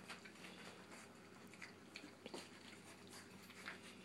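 Faint, scattered wet smacking and clicking of Brittany puppies lapping and chewing soupy ground puppy food from a shared pan, over a low steady hum.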